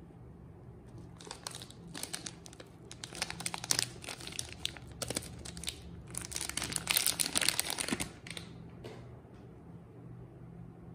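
Wrapper of a bar of Lifebuoy soap crinkling and tearing as it is opened and peeled off by hand. Dense crinkling that starts about a second in, swells twice and dies down near the end.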